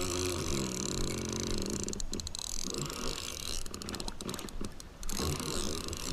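Fishing reel being wound in against a hooked fish snagged in weed, its gears giving a rapid clicking in two spells, about two seconds in and again around four to five seconds in, over a steady low rumble.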